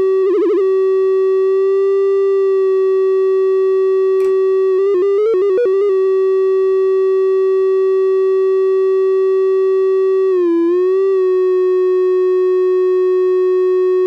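Octave-Plateau Kitten II analogue monophonic synthesizer, a single oscillator holding one steady, buzzy note. A throbbing modulation stops near the start, then a click about four seconds in. A fast warble in pitch follows for about a second, and near the eleventh second the pitch dips briefly and comes back.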